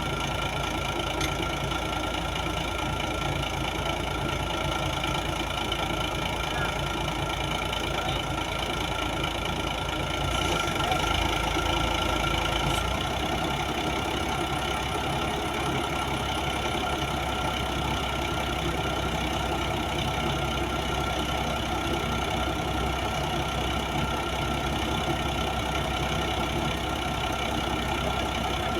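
Diesel engine of a 55-ton crane running steadily, with a slight rise in level around ten seconds in that falls back about three seconds later.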